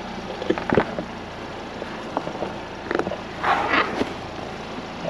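A vehicle's engine running steadily, with a few short, sharp sounds over it about a second in and again three to four seconds in.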